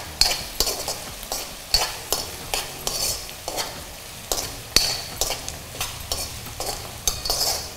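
Steel ladle stirring and scraping chopped onions and chillies frying in oil in a kadai, with a steady sizzle under repeated scraping strokes about two a second.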